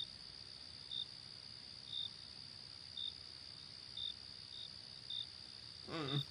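Crickets chirping: a steady high trill with short, separate chirps about once a second. A brief low voice sound, like a murmur or sigh, comes near the end.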